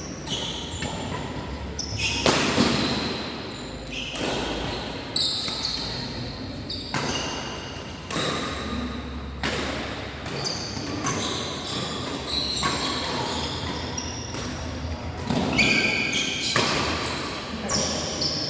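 Badminton being played in a sports hall: repeated sharp smacks of rackets hitting the shuttlecock, with short high squeaks from shoes on the court floor, echoing in the large hall.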